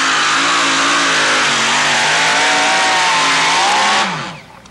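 Supercharged engine of a two-wheel-drive pulling truck running at full throttle under the load of the pulling sled, its pitch wavering up and down. About four seconds in it is shut off and the pitch falls away as it winds down.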